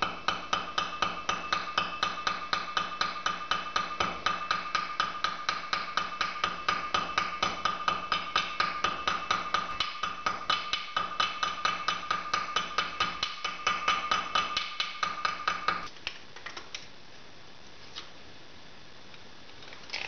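Small peen hammer tapping lightly and rapidly, about five taps a second, on the end of a copper wire rivet in a steel block held in a bench vise, peening its head over; a steady ringing note runs under the taps. The tapping stops about sixteen seconds in, leaving only a few faint clicks.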